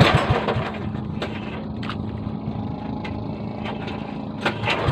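Small fishing boat's engine running steadily, with a few knocks and clatters, the loudest right at the start.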